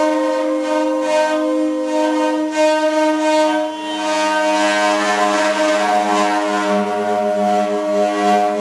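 Improvised percussion drawn out into several overlapping held, droning tones. A lower tone joins about two and a half seconds in, and a grainy rasp swells around the middle.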